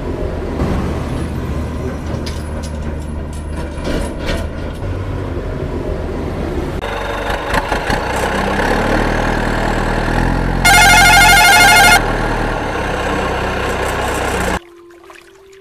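Truck engine sound effect running steadily, its note changing about seven seconds in, with a loud horn blast of just over a second about two-thirds of the way through. It cuts off abruptly about a second before the end.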